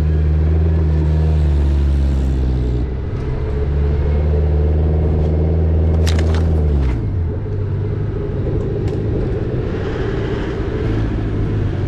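Off-road 4WD engine running steadily at low speed on a dirt track, its revs dropping about two-thirds of the way in. A few sharp clicks and knocks around the middle.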